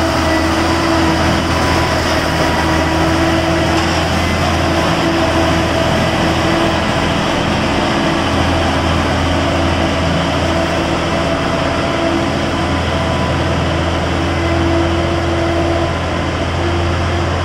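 Heavy engine running steadily, a constant loud drone with a strong low hum and a few steady tones over it.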